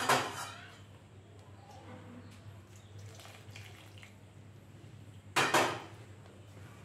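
Two loud metal clanks of cookware, a steel bowl and an aluminium kadai, one at the start and one near the end, with a short pour of hot water into rice flour and hand mixing between them.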